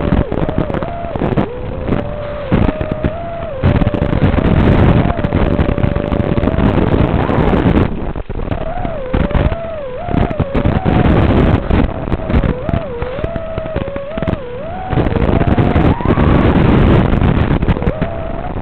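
FPV quadcopter's motors and propellers whining, the pitch rising and falling with every throttle change, over a rough rushing noise that surges and drops.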